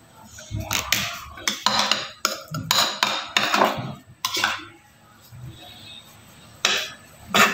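Small metal offset spatula scraping and clinking against a glass bowl of chocolate ganache and along the cake's aluminium turntable. A run of scrapes and knocks fills the first four seconds or so, it goes quieter in the middle, then two sharp clinks come near the end.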